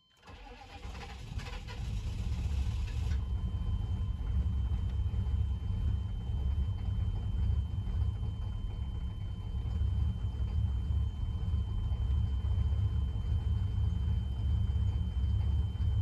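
The 1996 GMC K3500's 6.5L V8 diesel engine is started: the starter cranks and the engine catches within about three seconds, the higher cranking noise stopping abruptly. It then settles into a steady, low idle.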